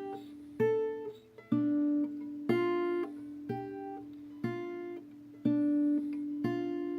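Background music: acoustic guitar picking single notes about once a second over a steady low ringing note.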